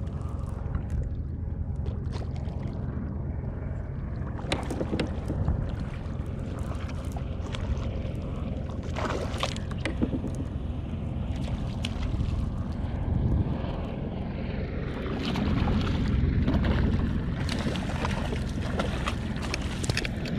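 Steady wind noise on the microphone and water moving around a kayak, with scattered knocks. Toward the end the noise grows louder and hissier as water splashes beside the kayak where a hooked fish is thrashing at the surface.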